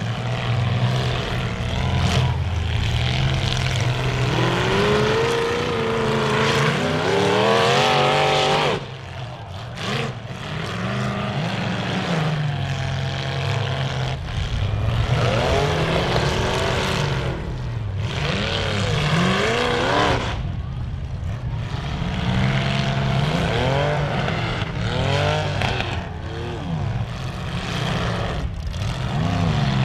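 Several bonestock demolition derby cars' engines revving hard and easing off again and again over a steady low engine rumble, as the cars drive around and ram one another.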